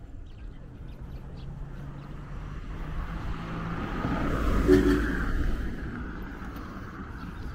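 A motor vehicle passing on the road, its engine and tyre noise swelling to a peak about halfway through and then fading away.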